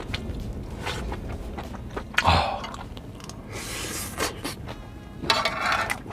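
Close-miked eating sounds: small clicks of chewing with three breathy huffs. The loudest huff comes about two seconds in, with a low thump.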